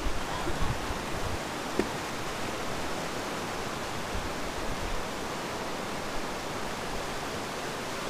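Fast mountain river rushing over rocks in whitewater, a steady, even roar. A few low bumps come in the first two seconds.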